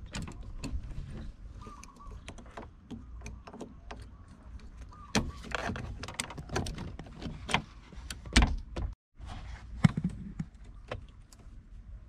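A new ignition lock cylinder, key in it, being slid and worked into the lock housing of a 1996 Toyota Tacoma's steering column: irregular small clicks, taps and scrapes of metal against the housing, with the keys on their ring clinking. Two sharper knocks come about two-thirds of the way through.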